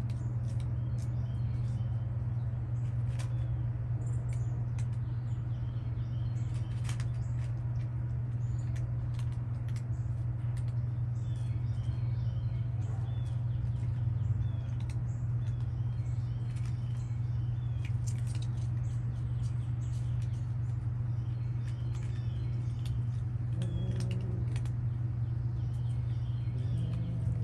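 Cats chewing dry food, many small crunching clicks, over a steady low hum, with faint bird chirps now and then.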